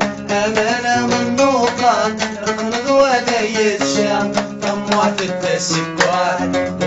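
A man singing a wavering melody over an acoustic guitar played in a steady run of plucked notes.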